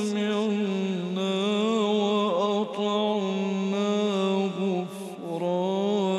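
A man reciting the Quran in the melodic tajweed style, drawing out a long, ornamented, wavering note, with a short break and a breath about five seconds in.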